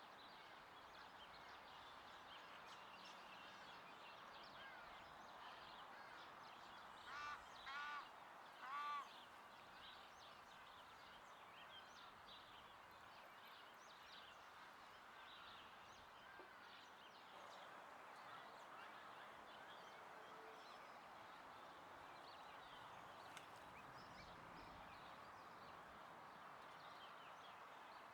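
Faint outdoor ambience with small birds chirping in the background, and three short, louder harsh calls from a bird about seven to nine seconds in.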